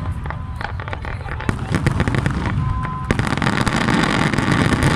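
Fireworks display: aerial shells bursting in quick succession, a dense run of sharp bangs and crackles over a continuous low rumble. A short steady high tone sounds about three seconds in.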